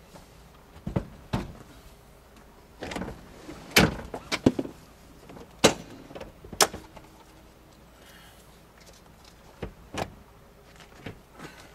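Clicks and clunks of a 2001 Toyota RAV4's rear seat being tipped up and unlatched from its floor anchors, with metal latches snapping and the plastic-backed seat knocking against the frame. About nine sharp knocks, loudest around the middle.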